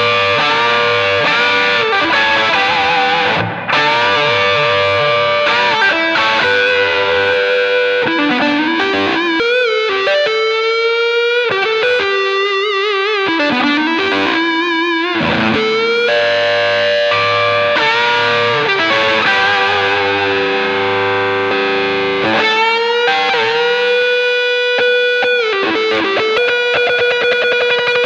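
Overdriven electric guitar lead from a Gibson SG through a Ryra Klon pedal into a slightly crunchy 1969 Marshall JMP 50 amp and a 12-inch Greenback speaker. The line has string bends and vibrato and ends on a long held note.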